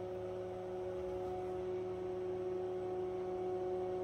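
Tektronix TDS 544A oscilloscope running with its cover off during power-up and boot: a steady, even electrical hum with a faint hiss.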